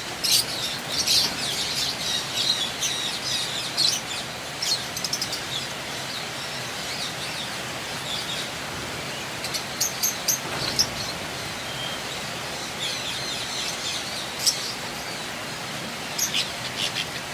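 Lovebirds chirping: short, high-pitched calls coming in scattered clusters, thickest in the first couple of seconds, again around ten seconds in and near the end, over a steady background hiss.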